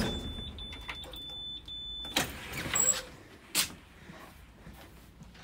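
A steady high electronic tone from the 2007 IC CE 300 school bus's child-check reminder sounds for about two seconds with a couple of brief breaks, then stops; a few knocks and footsteps on the bus floor follow.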